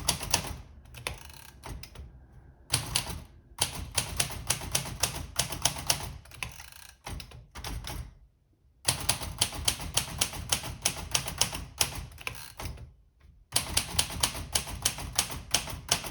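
Royal Deluxe manual typewriter being typed on, in quick runs of sharp key strikes broken by several short pauses.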